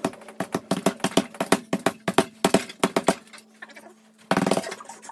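Rapid flurry of bare-knuckle punches on a heavy punching bag hung from a freestanding stand: about six quick thuds a second for about three seconds. A short scuffing burst follows near the end.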